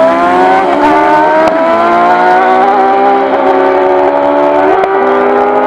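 Car engine accelerating hard, its pitch climbing steadily with a couple of sudden shifts, about a second and a half in and again near the end.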